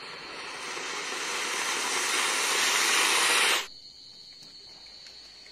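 Ground fountain firework (flowerpot) spraying sparks with a steady hiss that grows louder, then cuts off abruptly about three and a half seconds in.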